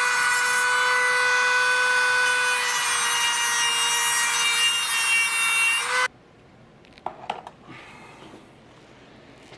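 Power cutoff tool with an abrasive wheel cutting through welds on steel: a steady high whine over a grinding hiss, dipping slightly in pitch as the wheel bears into the metal, then stopping suddenly about six seconds in. A few light metallic clicks follow.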